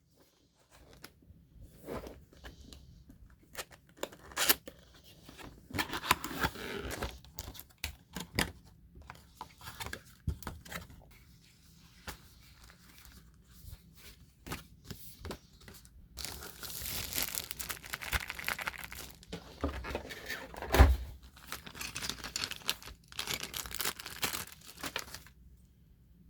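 Packaging being unwrapped and handled, with irregular rustling, tearing and small clicks, and one loud knock about four-fifths of the way through.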